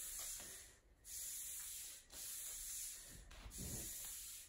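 Faint hiss of microphone and room noise that cuts out briefly about once a second, with one soft low thud about three and a half seconds in.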